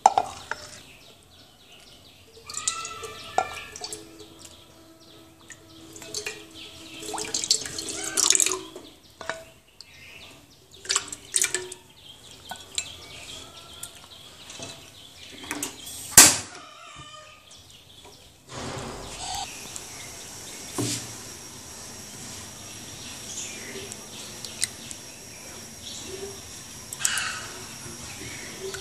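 Kitchen handling sounds: tomato juice poured from a bowl into a nonstick pan, with scattered clinks and knocks. A single sharp click comes about 16 seconds in, and from about 18 seconds on a steady hiss sets in.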